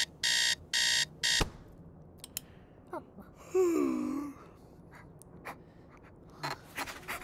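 Electronic alarm clock beeping four times, the fourth beep cut short by a thump; about two seconds later a woman gives one long, wavering yawn.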